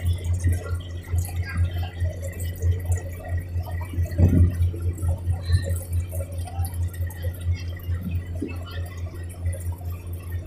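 A riverboat's engine running steadily underway: a low, even throb that pulses several times a second, swelling briefly about four seconds in.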